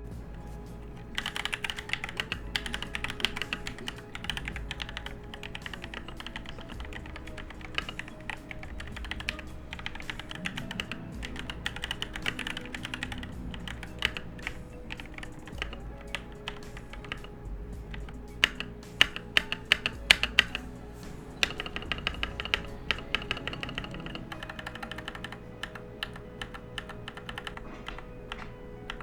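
Fast typing on a Gamakay LK67 mechanical keyboard with Gateron Yellow linear switches, a continuous run of key strokes played as a typing sound test of the switches lubricated and unlubricated. A burst of sharper, louder key strikes comes about two thirds of the way in. Background music plays underneath.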